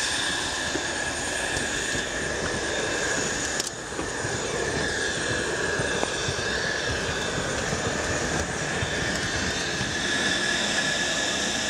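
Jet airliner on the airport apron running, a steady rushing noise with a high steady whine; it dips briefly about four seconds in.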